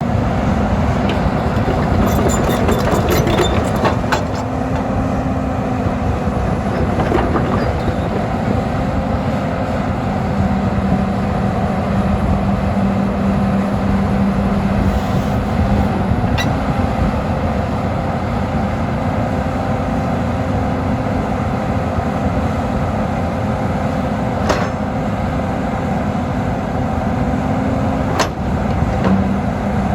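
Doosan DX420LC tracked excavator's diesel engine running steadily with a constant hum. A few sharp clanks cut through it: a cluster about two to four seconds in, then single ones later on.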